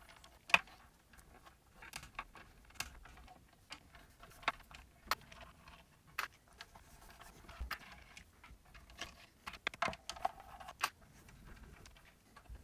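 Scattered light clicks and taps of a hand screwdriver and small metal screws as the woofer mounting screws are taken out of a speaker baffle, coming irregularly a few times a second.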